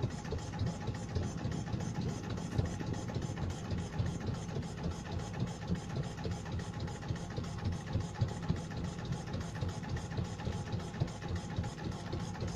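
Small wooden motorboat's engine running steadily at low cruising speed, with an even, rapid putter.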